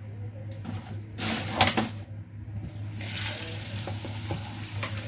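Cherry tomatoes tipped from a plastic tray into a plastic bowl with a short rattle and rustle of plastic, then the kitchen tap turned on about three seconds in, water running steadily into the bowl over the tomatoes. A low steady hum lies underneath.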